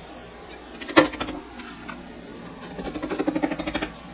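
Screen-printing tools being handled on a printing screen and frame: a sharp knock about a second in, then a fast rattling run of small clicks near the end as ink is worked along the screen's edge.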